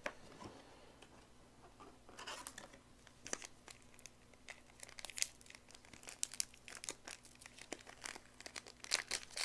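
Foil trading-card booster pack wrapper crinkling and tearing as it is picked at and pulled open by hand. It is a run of sharp crackles that starts about two seconds in and grows busier. The stiff wrapper does not tear open easily.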